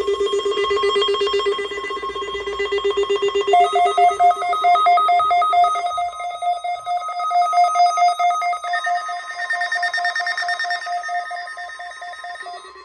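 Several weather alert radios sounding their alarms together after the weekly test tones, each a rapidly pulsing beep at its own pitch. The lowest one stops about six seconds in, a higher one joins about three and a half seconds in, and another joins around nine seconds.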